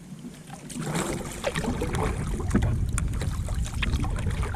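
Kayak paddle strokes splashing and dripping water, starting about a second in, over a low rumble.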